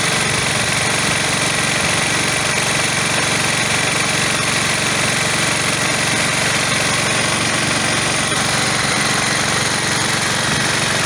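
1969 cast-iron Briggs & Stratton single-cylinder petrol engine running steadily under load, belt-driving a grain auger that is moving barley.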